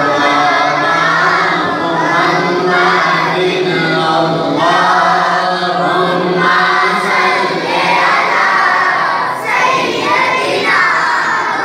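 Naat, an Urdu devotional song in praise of the Prophet, sung unaccompanied; the singing carries on without a break.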